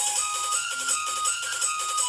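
Music: a melody of held high notes changing pitch every half second or so, over a light steady beat.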